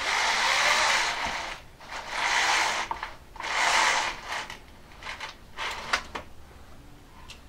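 Chain-operated blackout roller blind being lowered in its cassette: three long pulls on the chain, each a steady ratcheting rattle of the chain and roller mechanism, followed by a few faint clicks.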